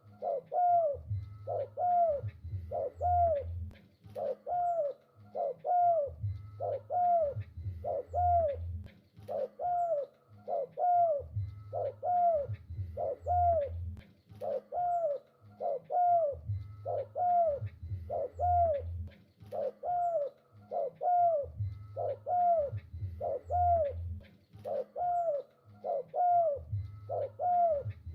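Spotted dove cooing vigorously, short arched coos repeated about twice a second without a break, over a deeper pulsing hum that comes and goes in groups.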